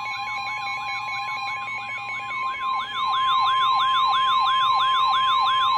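Weather alert alarm: a steady NOAA Weather Radio 1050 Hz warning tone under a fast, repeating rising siren sweep, about three sweeps a second. The sweep gets louder about three seconds in, marking the start of a new warning.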